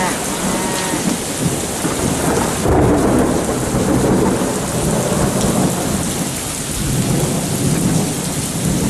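Heavy rain pouring down and splashing on standing water, with thunder rumbling underneath; the rumble swells about three seconds in.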